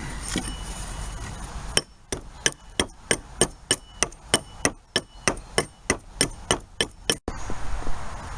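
A steady run of hammer blows on metal, about three a second, each with a short metallic ring. It starts about two seconds in and cuts off abruptly near the end.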